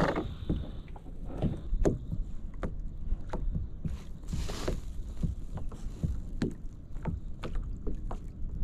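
Small waves slapping against a plastic sit-on-top kayak's hull in irregular knocks, over a low wind rumble on the microphone. A short hiss comes about halfway through.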